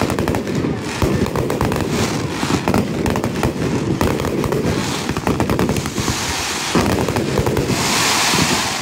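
Aerial fireworks display: rapid, overlapping bangs and cracks of shells bursting overhead. Near the end comes a hissing stretch as a volley of comets shoots up.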